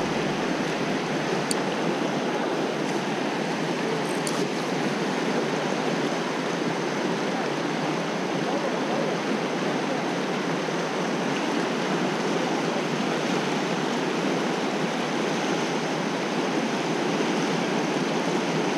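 River rapids rushing over rocks: a steady, even rush of water. Two faint clicks come about a second and a half and four seconds in.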